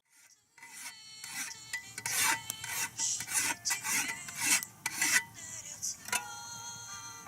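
Repeated rasping, scraping strokes, roughly two a second, of something rough being rubbed back and forth, starting about half a second in.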